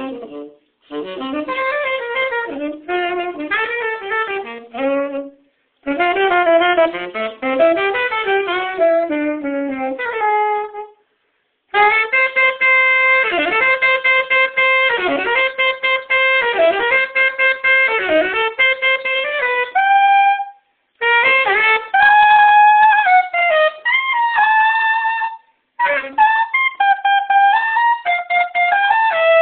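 Unaccompanied tenor saxophone improvising jazz: fast runs of notes in phrases broken by short pauses.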